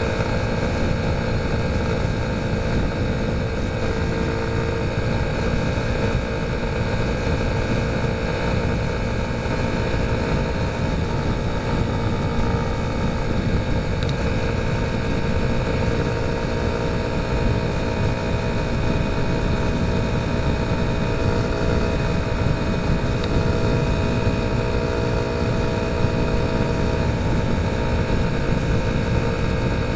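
Motorcycle cruising at a steady road speed, its engine note held level under a dense low rumble of wind and road noise.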